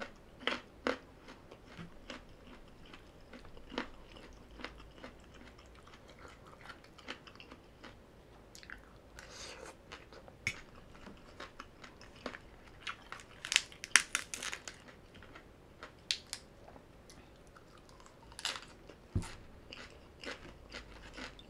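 A person chewing crunchy papaya salad close to the microphone, with wet mouth clicks and crisp crunches. The loudest is a quick run of crunches about two-thirds of the way through.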